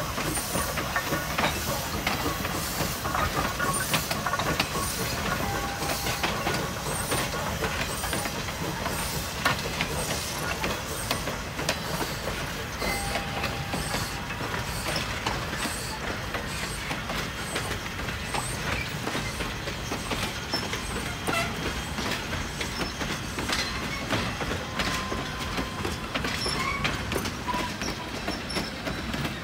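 A 1928 coal-burning 0-4-0 tank steam locomotive passes close by, followed by its caboose and passenger coaches, wheels clicking steadily over the rail joints, with a few brief faint squeals.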